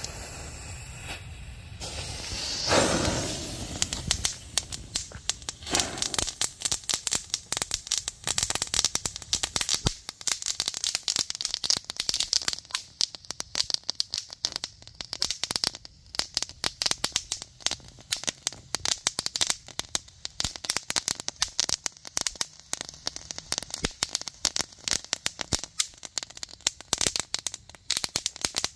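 Chinared 'Flashback' category 1 ground fountain firework: the lit fuse hisses, the fountain catches with a louder rush of spray about three seconds in, then it crackles continuously with dense, rapid little pops.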